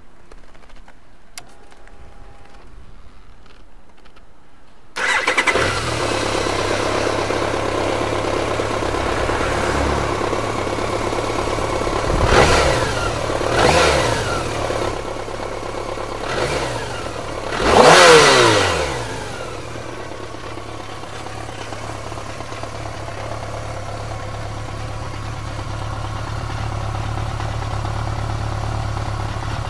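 1997 BMW K1200RS's inline-four engine starting about five seconds in, after a few seconds of faint clicks, then idling. Four quick throttle blips, the last the highest and loudest, before it settles back to a steady idle.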